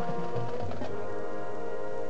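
High school marching band playing, the winds holding a sustained chord with a few low drum strokes in the first second.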